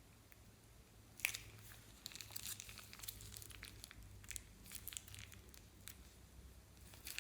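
Thin plastic piping bags crinkling and crackling as they are handled, with a sharp click about a second in.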